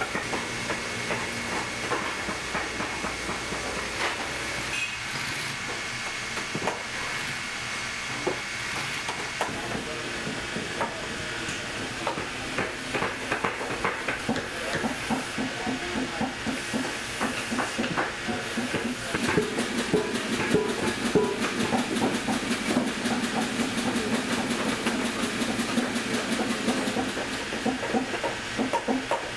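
Industrial post-bed sewing machine stitching a leather boot upper: a fast, even clatter of needle strokes over the machine's running hum, busier and a little louder in the second half.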